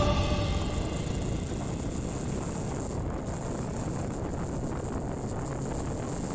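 Steady rush of wind on the microphone of a moving motorcycle, with engine and road noise underneath. The tail of background music fades out about a second in.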